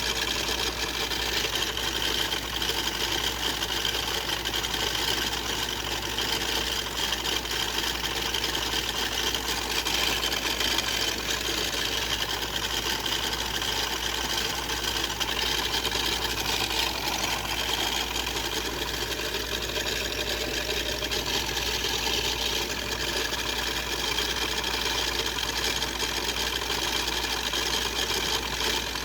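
Small motor whirring steadily as it spins a toy car round and round without let-up.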